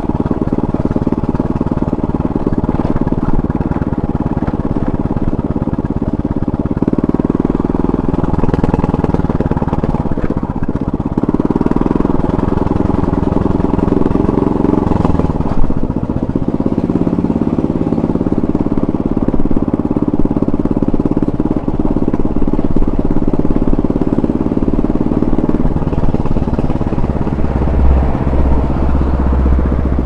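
Motor scooter engine running under way, its note shifting up and down several times as the speed changes, with one sharp knock about halfway through.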